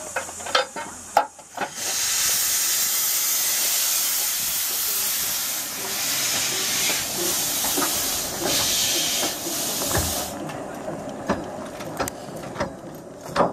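Small 15-inch gauge steam locomotive letting off a loud, steady hiss of steam that starts about two seconds in and cuts off after about eight seconds. Sharp metallic clicks and knocks come before and after it.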